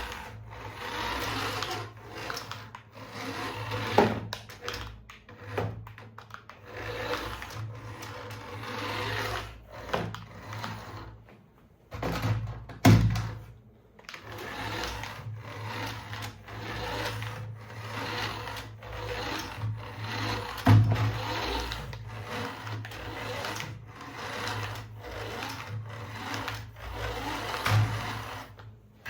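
A small electric toy motor whirring with gear rattle, stopping and starting, with a few sharp knocks.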